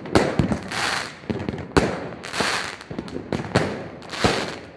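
New Year's fireworks going off: a sharp bang about once a second, between stretches of hissing crackle from bursting shells.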